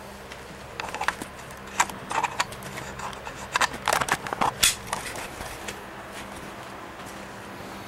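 Metal engine parts being handled, clinking and scraping in a string of sharp clicks from about a second in until about five seconds in, over a faint steady hum.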